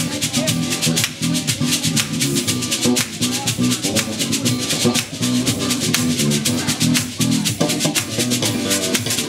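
Live band music: hand percussion with a shaker keeping a dense, steady rhythm over a bass guitar line.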